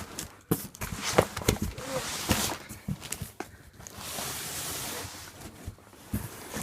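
Cardboard shipping box being handled and opened by hand: a quick run of knocks and scrapes, then a longer rasping noise about four seconds in.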